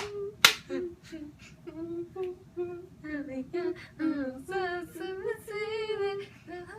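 A girl singing a melody unaccompanied, holding notes and stepping between pitches, with two sharp hits about half a second apart at the start.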